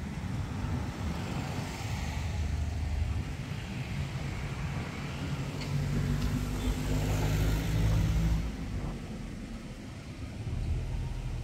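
A motor vehicle's engine passing by: a low hum that grows louder to a peak about eight seconds in, then fades, over a steady low rumble.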